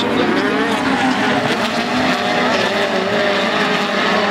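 A field of speedcars (midget race cars) racing on a dirt oval, several engines running together with their pitch wavering up and down as the cars go round.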